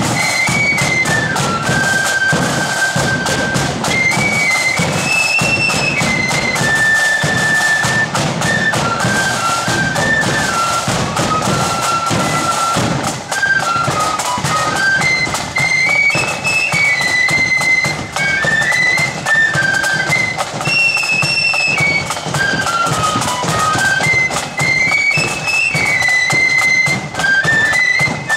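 Blood-and-thunder marching flute band playing a tune: many transverse flutes in unison carrying a stepping melody, with drums beating steadily beneath.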